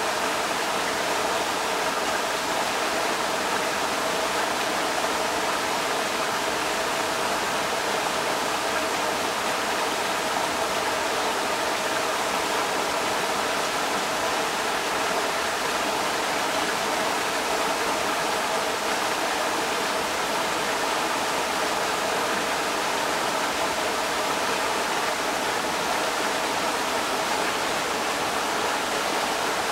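Creek water rushing steadily over rocks, a constant even splashing rush.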